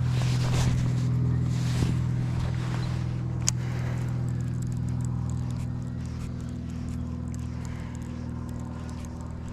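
A motor running with a steady low hum that slowly fades, with a single sharp click about three and a half seconds in.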